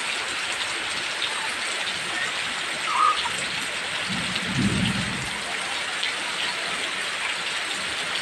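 Heavy rain falling steadily as a dense hiss. About halfway through there is a brief low rumble, and just before it a short, louder sound.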